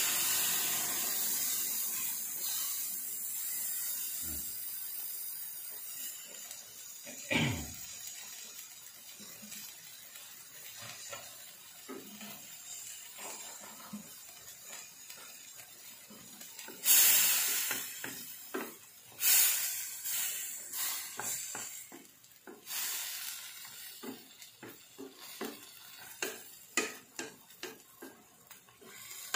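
Water poured into a hot stainless pan of fried fish sizzles, a loud hiss that fades over the first several seconds into a low simmer. Later come three sudden louder bursts of noise, then a run of short knocks and scrapes as a wooden spatula works against the pan.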